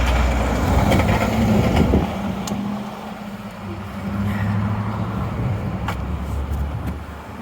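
Motor vehicle engine running: a loud low rumble for the first two seconds, then a steady engine hum.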